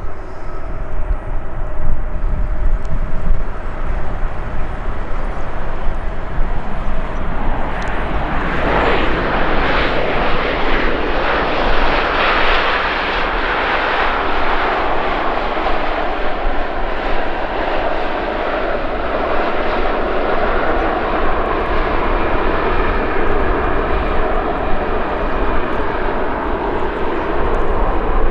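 Boeing 737-800 jet airliner's CFM56 turbofan engines on its landing arrival: a steady rumble that swells sharply about eight seconds in and stays loud.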